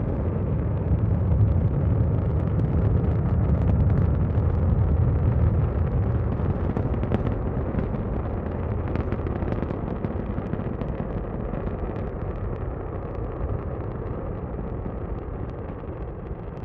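Saturn V rocket engines during ascent: a deep, continuous rumble with scattered crackling that slowly fades as the rocket climbs away.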